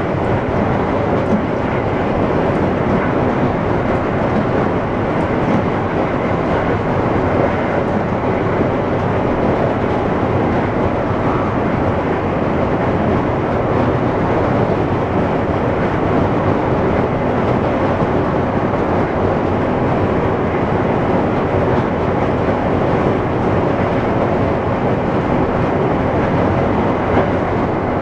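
Amtrak passenger train running at speed, heard from the back of the train: a steady, loud rumble of wheels on the rails.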